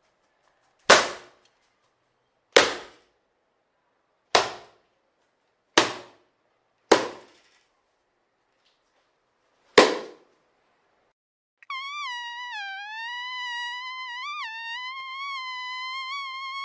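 Six sharp single hits, one to three seconds apart, each dying away quickly. About twelve seconds in, a mosquito's high whine starts: a steady buzzing tone that wavers slightly in pitch.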